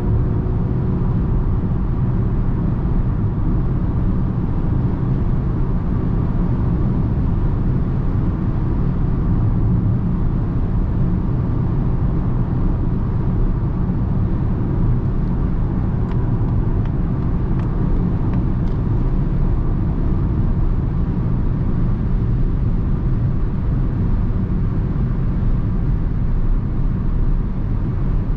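Steady in-cabin road and wind noise from a 2021 Mazda MX-30 electric car driving at autobahn speed. It is an even low rumble from the tyres and the wind, with no engine note since the car runs on a single electric motor.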